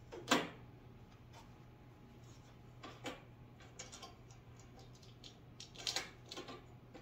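Scattered clicks and knocks of metal parts being handled as a dog grooming table's arm bar and clamp knobs are repositioned. The loudest knock comes about a third of a second in, with a cluster of knocks near six seconds, over a low steady hum.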